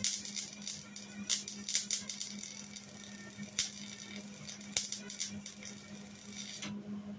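Wire-feed welder arc crackling and sputtering as a fill weld is laid into a gap on a Jeep CJ7 body mount. The arc stops near the end, over a steady low hum.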